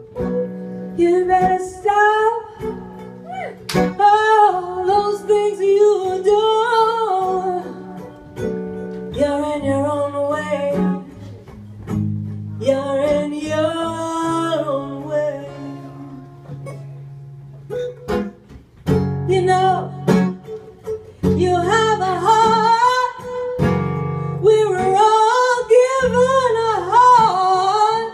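Live acoustic song: a woman singing into a microphone in long phrases with short pauses, accompanied by two acoustic guitars.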